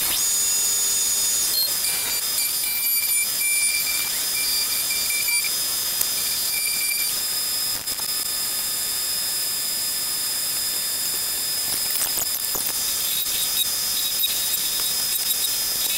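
Vertical milling machine running with a steady high hiss and whine as the drill bit in its spindle works a metal part clamped in the vise, with a broken high tone a few seconds in.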